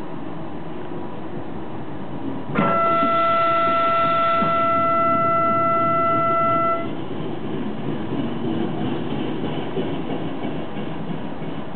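A train horn sounds one steady note for about four seconds, starting about two and a half seconds in and cutting off abruptly. Under it runs the steady rumble of an Intercity passenger train on the rails.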